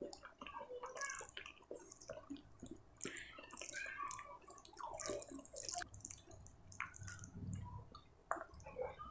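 Bare fingers squishing and mixing rice with curry gravy on a paper plate: a dense run of small wet, sticky clicks and smacks.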